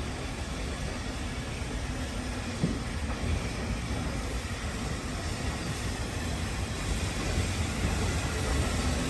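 Low steady rumble of a heritage steam train, with a single sharp knock about two and a half seconds in, growing a little louder toward the end.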